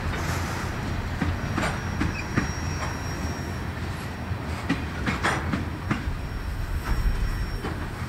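Canadian Pacific freight train's cars rolling past with a steady low rumble, the wheels clicking and clunking irregularly over the rail joints, and a faint high wheel squeal now and then.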